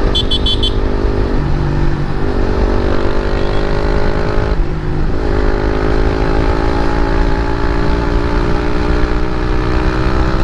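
KTM Duke 250's single-cylinder engine through an aftermarket Akrapovic exhaust, pulling under acceleration with its pitch climbing, broken by two gear changes about one and a half and four and a half seconds in. A few quick high beeps sound in the first second, over steady wind rumble on the microphone.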